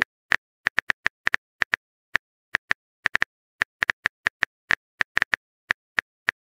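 Phone keyboard typing sound effect: a run of light, quick key clicks at an uneven pace, about four a second.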